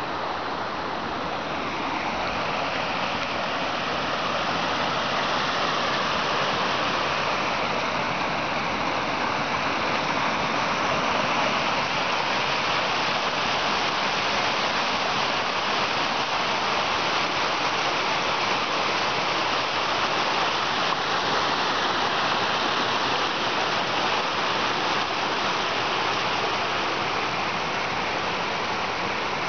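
Small forest creek rushing and splashing over boulders in little cascades, a steady water noise that grows louder in the first few seconds and eases off slightly near the end.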